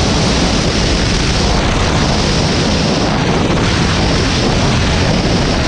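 Snowmobile running along a trail: a loud, steady engine rumble mixed with wind rushing over the microphone.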